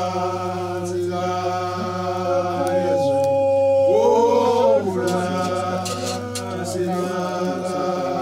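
Vocal music: voices chanting and singing in long held notes. About four seconds in, one voice slides up and back down.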